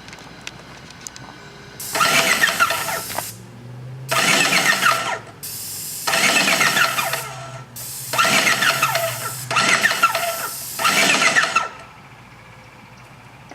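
Aerosol spray paint can spraying in about six hissing bursts of roughly a second each, with short pauses between, starting about two seconds in.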